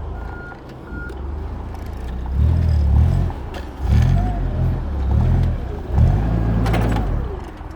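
Forklift reverse alarm beeping a couple of times, then the forklift's engine revving in three surges of about a second each as it maneuvers, with a short metallic clank near the end.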